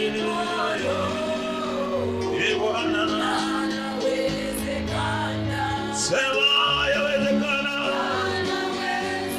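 Gospel music with singing over steady instrumental backing.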